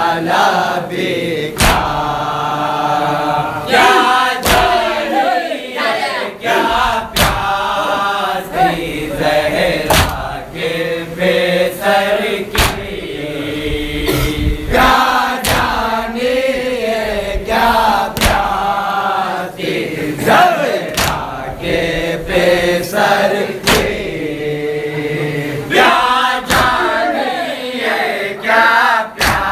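A group of men chanting a Shia noha (Urdu mourning lament) in unison. Sharp strikes of matam, hands beating on chests, land every one to three seconds.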